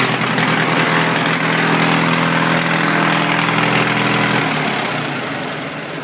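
Riding lawn mower's small engine running steadily, freshly started with a push-button switch. Its steady hum stops about four and a half seconds in and the sound fades out.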